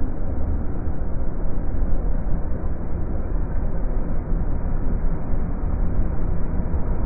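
Irish Rail 29000 class diesel multiple unit passing through the station, a steady rumble of underfloor engines and wheels on the rails.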